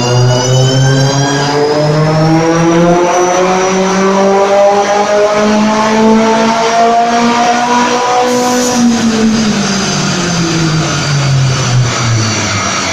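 Turbocharged VW Golf Mk5 four-cylinder engine, running a Garrett GTX2867 turbo at 1.6 bar boost, pulling under load on a chassis dyno: the revs climb steadily for about eight seconds. About eight and a half seconds in the throttle closes with a short hiss and the revs fall away.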